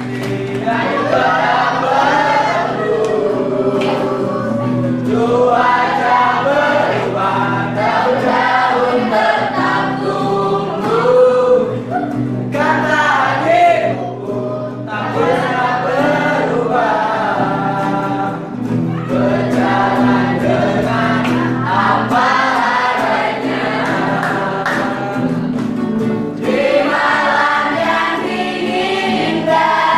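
A group of young voices singing a song together in chorus, over held low tones of accompaniment.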